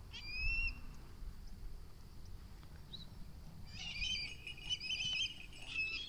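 High-pitched calls from a Harris hawk: one short call that rises and then holds near the start, then a longer run of wavering, whining calls from about halfway in, as the hawk flies in to the glove. A low rumble of wind on the microphone runs underneath.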